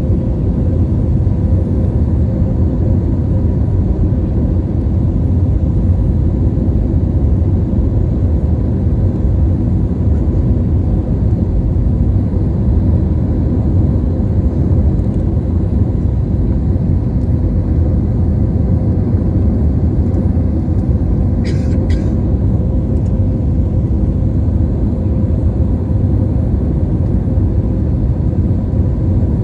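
Steady low rumble of an airliner cabin: jet engine and airflow noise with a faint constant hum. Two brief clicks sound about three quarters of the way through.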